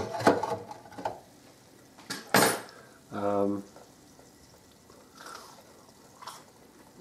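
Wire deep-fryer basket clinking and clanking against the fryer's metal pot as it is handled and lowered back into the oil: a few sharp clicks in the first second, then one louder clank about two and a half seconds in.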